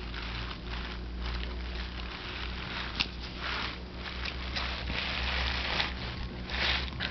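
Stainless steel pick tool scratching along a pumpkin's rind in a series of short strokes, scoring an outline for carving, with a sharp click about three seconds in.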